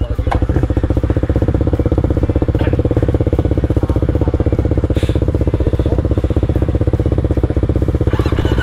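Yamaha WR155R's single-cylinder four-stroke engine idling steadily, setting in abruptly at the start, with close, even firing pulses.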